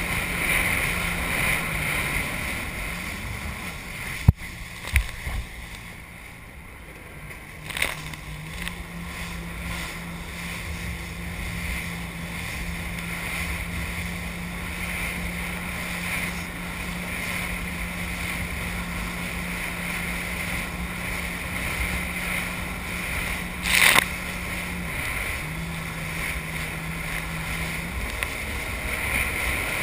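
Jet ski engine running steadily under wind and water spray, with a few sharp knocks as it crosses waves. The engine note drops briefly about two seconds in and again near the end, as the throttle is eased.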